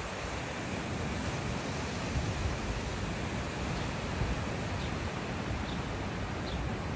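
Wind blowing across the microphone and through clifftop grass, with gusty low buffeting, over the steady wash of sea surf below.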